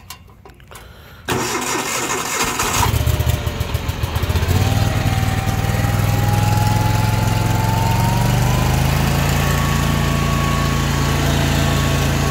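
Dixie Chopper XG2703 zero-turn mower engine started with the key. The starter cranks about a second in, the engine catches and runs unevenly for a moment, then settles into a steady idle with a faint whine that rises slowly in pitch.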